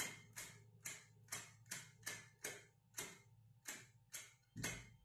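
A small cigarette lighter being struck over and over, about two to three clicks a second, as it fails to keep a flame.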